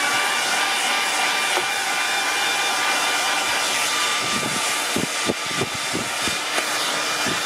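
Hand-held hair dryer running steadily on its high setting: a rush of air with a steady whine. A few light knocks come in the second half.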